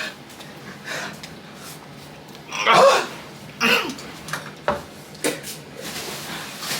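A person coughing and letting out short, sharp vocal outbursts, a reaction to the burn of an extremely spicy gummy bear. The loudest outburst comes about three seconds in.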